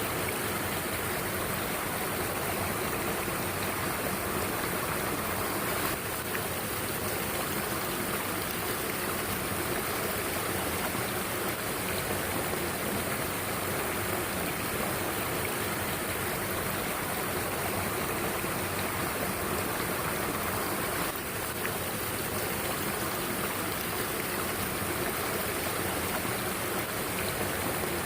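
Mountain stream flowing over rocks: a steady, unbroken rush of water.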